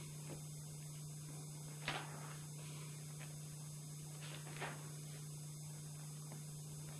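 Steady low electrical hum under faint hiss, with two faint short noises, one about two seconds in and one about four and a half seconds in.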